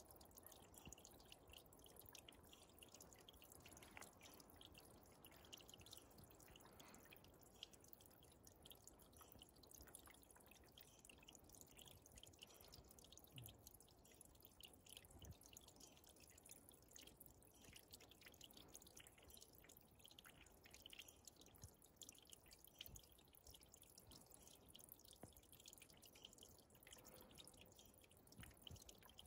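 A small forest stream trickling and dripping into a shallow pool: a faint, steady patter of many small water drops.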